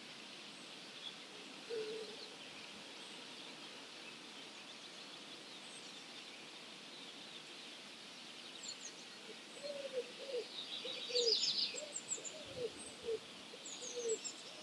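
Dawn chorus of wild songbirds: a steady wash of distant high singing. About ten seconds in, a run of short, low, falling calls repeats about twice a second, and a nearer bird gives a bright twittering phrase, the loudest sound here.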